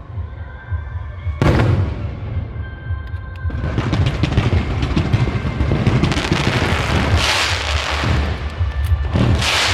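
Fireworks display: a deep boom of a bursting shell about a second and a half in, then from about three and a half seconds a dense run of crackling bursts, with louder bursts near the end. Music with a steady low bass plays underneath.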